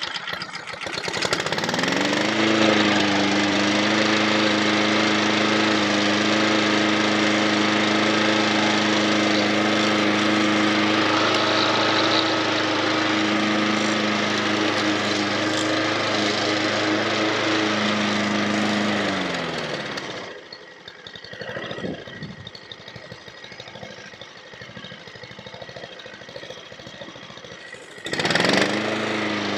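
Honda Izy petrol lawn mower's single-cylinder four-stroke engine comes up to speed about two seconds in and runs steadily at governed speed, running as it should after a basic service. At about 19 seconds it is shut off and winds down. Near the end it starts again and speeds back up.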